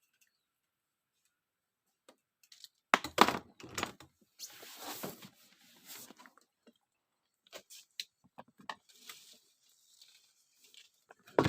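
Handling knocks and taps: two heavy knocks about three seconds in, then a short noisy rush and scattered clicks, with another heavy knock near the end.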